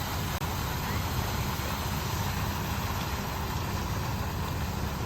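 A vehicle engine running steadily: a low rumble under an even hiss.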